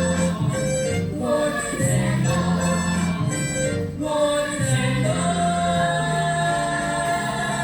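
Voices singing a musical-theatre song over a backing track, holding one long note in the last couple of seconds.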